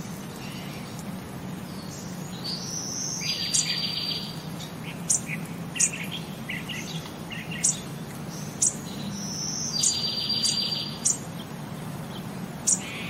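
High-pitched chirps with two longer trills, a few seconds and ten seconds in, and half a dozen sharp clicks scattered through, over a steady low hum.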